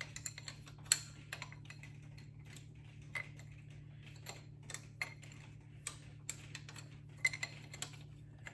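A 9/16 wrench clicking against a nut on the injection pump as it is turned a little at a time and repositioned: light, irregular metal ticks, one sharper knock about a second in. A steady low hum runs underneath.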